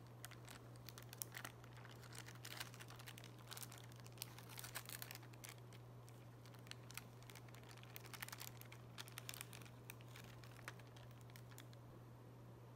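Clear plastic film crinkling and crackling in irregular bursts as it is torn and pulled off a plastic lunch box tray, over a steady low hum. The crackling stops shortly before the end.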